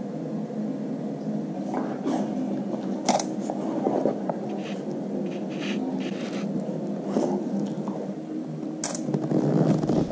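Steady low room hum, with scattered light clicks and brief rustles as a dog moves about close by on a vinyl floor.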